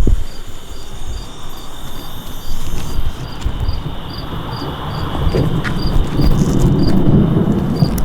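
Crickets chirping steadily, about two chirps a second, while a low rumble of thunder swells over the second half.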